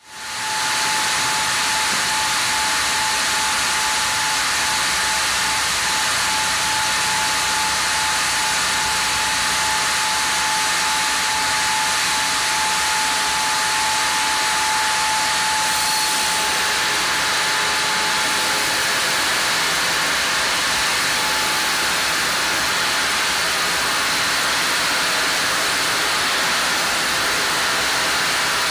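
Sawmill log band saw (headrig) running, a steady machine hiss with a thin high whine that fades about halfway through.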